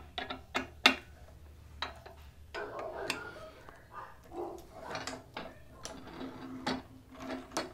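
Metal parts of a Motion Pro fork pivot vise clicking and clunking as the vise head is fitted onto its mounting post: a scatter of light knocks and clicks with some handling rustle between them.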